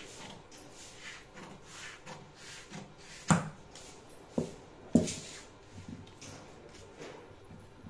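Tailor's scissors cutting out a coat panel in steady strokes, a soft swish about twice a second. Three sharp knocks on the table about a third of the way through and midway are the loudest sounds.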